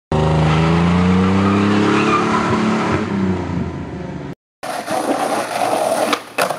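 An engine running steadily, its pitch drifting slowly downward, cut off abruptly after about four seconds. After a brief gap comes a noisier stretch with scattered sharp clicks.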